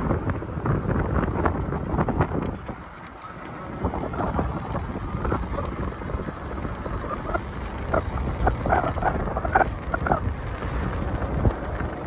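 Wind buffeting the microphone of a handheld camera outdoors, a low, rumbling, crackling noise that eases for about a second around three seconds in.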